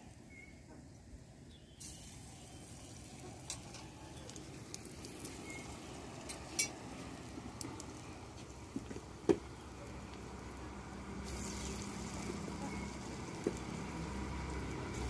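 Chana dal fritters sizzling as they deep-fry in a wok of hot oil, the sizzle rising about two seconds in and slowly growing louder. A few sharp clicks cut through it, the loudest about nine seconds in.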